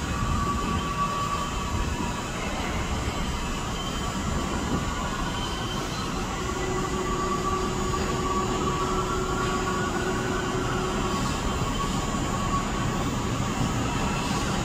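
New York City Subway 2 train pulling slowly into a station: a steady rumble of wheels on the rails with thin whining tones over it.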